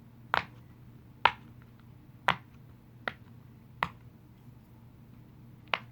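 Silicone push-pop poppet bubbles being pressed through one at a time: six sharp pops, about one a second. The bubbles are stiff to push, which makes each pop louder.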